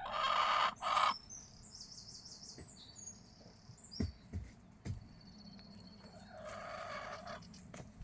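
A chicken gives a loud call in the first second and another, lower one near the end. In between, a small wild songbird chirps a rapid, high-pitched song.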